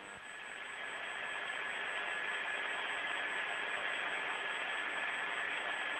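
Steady hiss of an open air-to-ground radio link between transmissions, with a thin steady whistle in it, growing slightly louder over the first two seconds.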